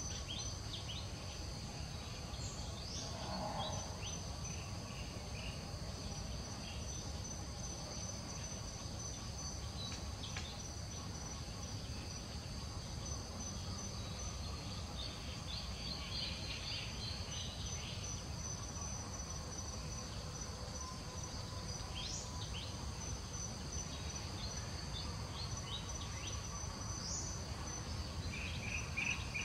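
Steady chorus of insects such as crickets, a continuous high-pitched trill at two steady pitches over a low background rumble, with scattered short chirps.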